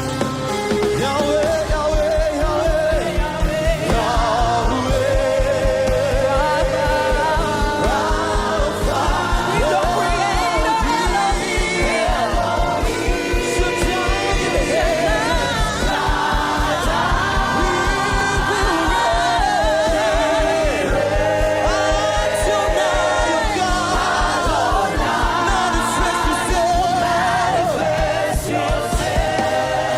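Worship band and singers performing a gospel song, the voices over a fast, steady kick-drum beat that drops out near the end.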